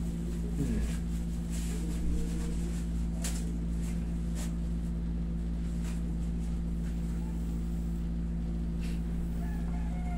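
Steady low hum of a running wall-mounted air conditioner, with a few faint soft rustles and clicks from hands massaging a wrist through a tissue.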